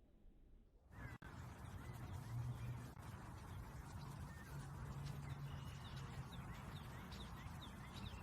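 Bird chirping: short high chirps in a quick series over steady background noise, starting about a second in after a near-silent moment.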